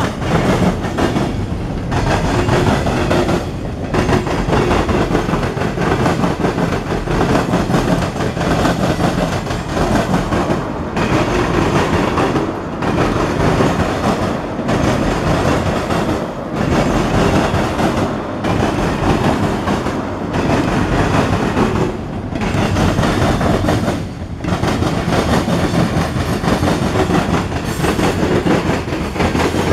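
Freight cars of a passing mixed freight train rolling by close at hand: a steady loud rumble with wheels clacking over rail joints. The noise dips briefly every few seconds.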